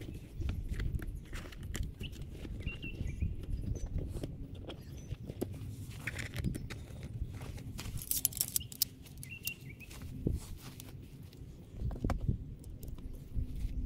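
Rustling and handling of a canvas-and-nylon swag as it is pulled over a stretcher-bed frame, with scattered clicks and knocks from the frame and fittings. A steady low rumble of wind on the microphone runs underneath.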